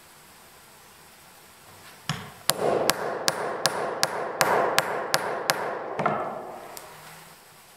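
The back of a hatchet head hammering a steel hole-cutting punch through heavy canvas laid on a wooden floor, cutting a hole for a grommet. It strikes about ten quick blows, roughly three a second, and stops about six seconds in.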